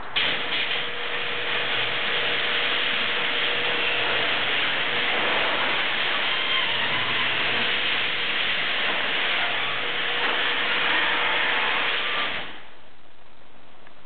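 Electric garage door opener running and moving the door: a steady mechanical whir with a low hum that starts suddenly and cuts off about twelve and a half seconds in.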